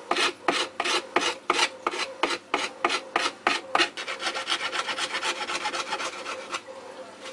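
A flat hand file rasping back and forth along the freshly cut edge of an electric skateboard deck, smoothing the cut. About four strokes a second at first, then quicker, lighter strokes from about four seconds in, stopping shortly before the end.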